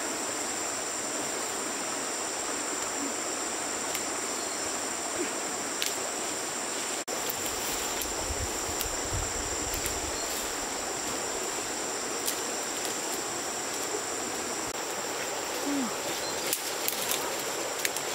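Steady rush of flowing stream water under a constant high insect drone, with scattered light crackles of dry leaves and twigs underfoot.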